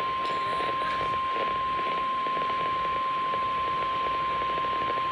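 NOAA Weather Radio's 1050 Hz warning alarm tone: a single steady high-pitched beep held without a break over the hiss of the weather radio receiver. It signals that a warning is about to be broadcast, here a flash flood warning.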